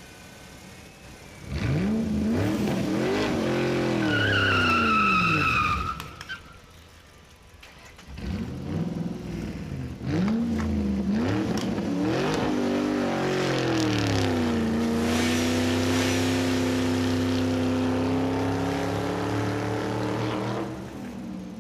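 Vehicle engine revving up and down several times, with a high tire squeal a few seconds in, then revving again and settling into a steady held note before cutting off near the end.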